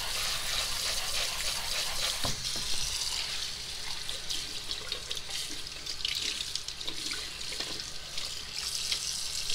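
Kitchen tap running, its stream splashing over raw chicken livers in a mesh strainer in the sink as they are rinsed. One light knock a little over two seconds in.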